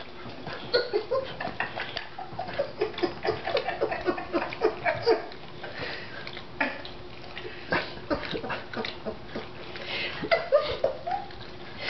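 A dog licking peanut butter off a person's face: a quick, irregular run of wet licks and smacks, several a second.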